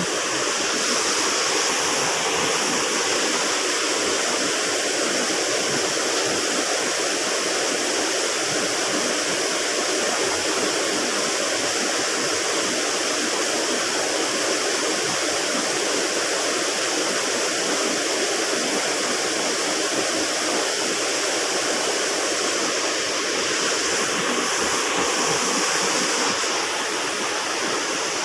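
Steady rush of a small river's flowing water, even and unbroken.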